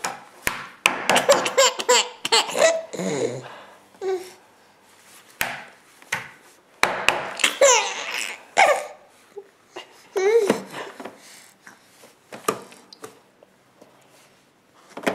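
A nine-month-old baby laughing in several bouts of belly laughs and giggles, set off by sharp hand slaps on a table. The laughter dies down near the end.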